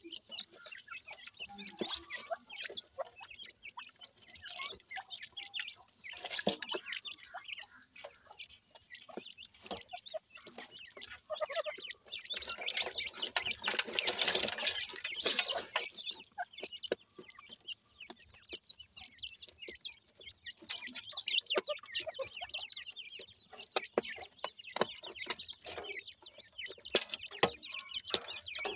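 Francolin chicks and their mother calling with short, high chirps while pecking and scratching in dry soil, with many small clicks of beaks and feet on the clods. A longer rustling burst comes about halfway through.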